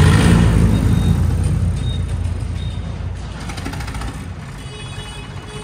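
Tractor's diesel engine revving up at the start and then running on the move, its sound gradually easing off.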